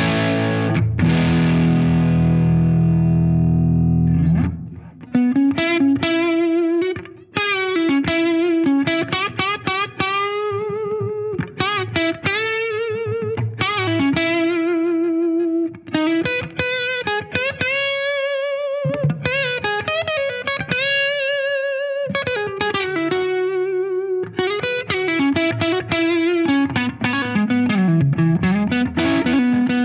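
Gibson Les Paul Standard electric guitar on its neck pickup, played through an overdriven amp. Sustained distorted chords ring for about the first four seconds, then single-note lead lines with wide vibrato on the held notes.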